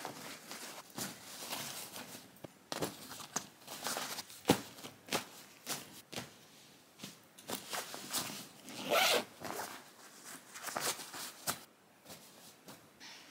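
Clothes being packed into a zippered fabric packing cube: rustling and short rasping strokes of fabric and zip, irregular, the loudest about nine seconds in.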